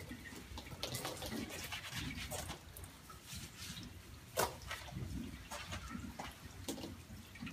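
Hands working conditioner through a horse's long, wet tail hair: soft, irregular wet rubbing and squishing strokes. One sharp click about four and a half seconds in.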